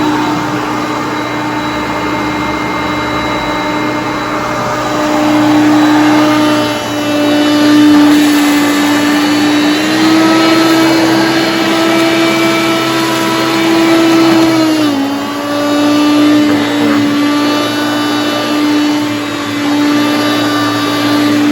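Hoover Concept One vacuum cleaner running with a steady motor hum. Its pitch rises slightly about ten seconds in and drops again about five seconds later.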